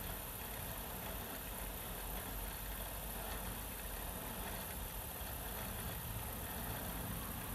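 Federal Signal AeroHawk lightbar's rotator motors running together with a steady mechanical sound that does not change.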